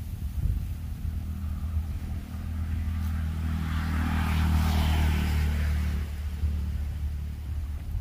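Motor vehicle engine running with a steady low hum, swelling to its loudest about halfway through and easing off again as it passes by.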